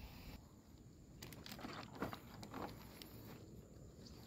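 Faint rustling and a few soft, short knocks from someone moving about and handling things right next to the microphone, over a quiet outdoor background.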